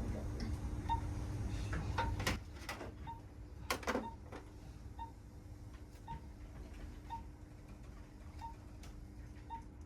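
Patient monitor's pulse beep, a short high tone repeating about once a second, over a steady low hum. A low rumble cuts off a little over two seconds in, and there are a few sharp clicks around two and four seconds in.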